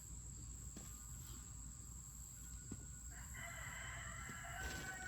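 A rooster crowing once: one long drawn-out call starting about three seconds in.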